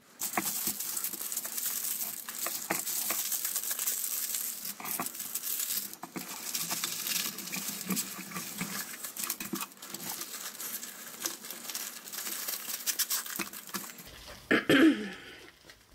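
Diamond painting canvas with its clear plastic cover film crinkling and rustling as it is rolled up and put away by hand, with small clicks and taps. The crinkling stops shortly before the end.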